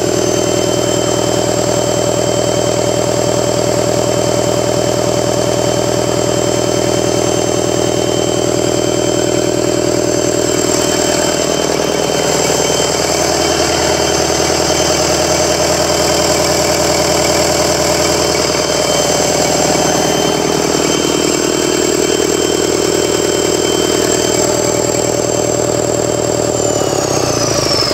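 Caterpillar C4.4 four-cylinder diesel engine running steadily on a stand, with a high whine over the engine note. Near the end the whine falls in pitch as the engine slows.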